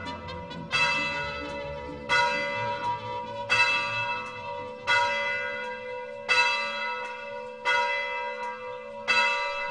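A single church bell tolling slowly: seven strikes about a second and a half apart, each ringing on and fading before the next.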